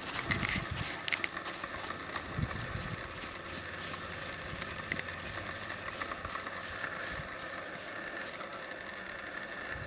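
A horse's hooves landing on a sand arena surface, a few soft thuds in the first seconds, over a steady background hiss and rumble.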